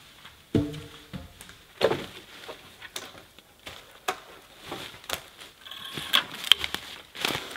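Dry dead branches creaking and cracking as they are handled, with sharp snaps about half a second and two seconds in, and dry leaf litter crunching underfoot.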